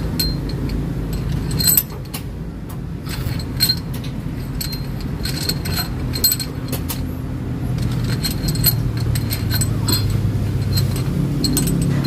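Small metal clinks and taps of engine parts being handled and fitted, scattered irregularly over a steady low hum.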